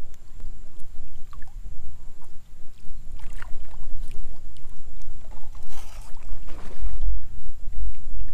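Wind buffeting the microphone with a low rumble, loudest about seven to eight seconds in, over water lapping against a stand-up paddle board as it moves, with a few short splashes around three and six seconds in.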